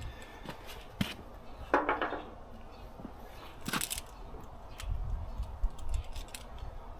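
Banjo garden hose fittings being handled: scattered clicks and clinks of hard fittings knocking together, with a short squeak about two seconds in and some low handling rumble later.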